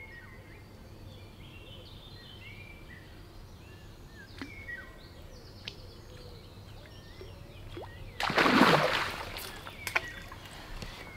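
Birds chirp against a quiet riverside ambience. About eight seconds in comes a loud splash lasting about a second: a fish striking a topwater lure at the surface.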